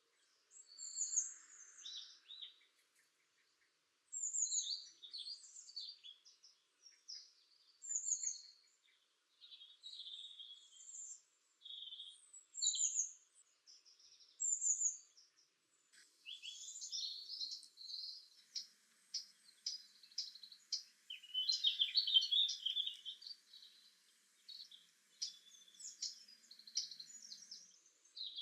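Songbirds singing: short high phrases of chirps and whistles every second or two, then from about halfway a denser run of rapid chirps and trills.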